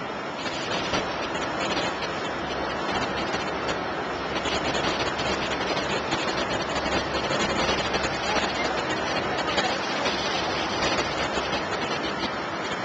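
Steady rushing noise of wind and choppy sea heard from a boat on open water, with low rumbling wind buffeting on the microphone around the middle.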